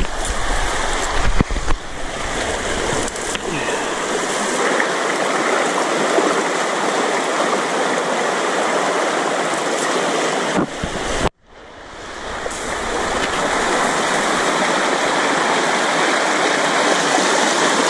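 Shallow river water rushing over a riffle close by: a steady, loud rush. About eleven seconds in it cuts out for an instant, then swells back up.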